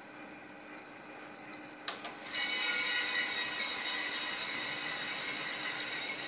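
A click as the hopper gate of a Fuji Royal Discovery drum coffee roaster opens, then green coffee beans charge into the hot rotating drum and rattle steadily as they tumble, over the low hum of the drum motor.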